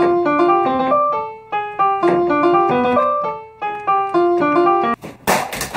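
Short piano tune of quick single notes, the same phrase played twice, then about five seconds in a loud burst of harsh noise lasting under a second.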